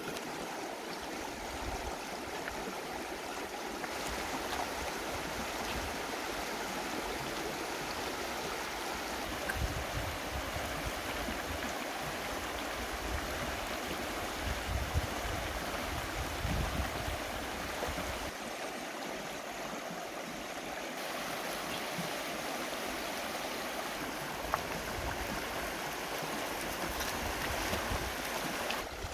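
Shallow river rushing and burbling over stones: a steady wash of running water.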